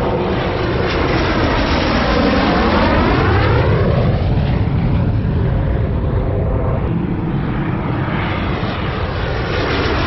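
Dassault Mirage F1's single Atar 9K-50 turbojet running loud as the jet flies low on final approach. As it passes, the noise sweeps in pitch with a swirling, phasing whoosh, once a few seconds in and again near the end.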